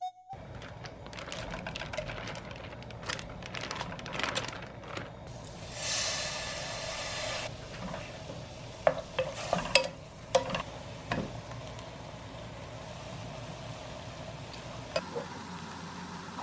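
Clam and shrimp meat sizzling in oil in a nonstick pot while being stirred with a spatula, with a louder burst of sizzling about six seconds in. Several sharp knocks of the spatula against the pot come in quick succession between nine and eleven seconds.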